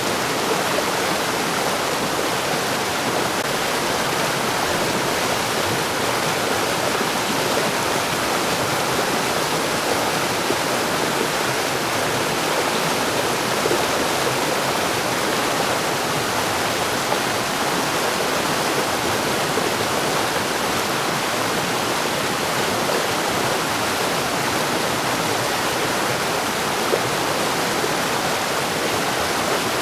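Mountain stream rushing over rocks: a steady, unbroken rush of running water.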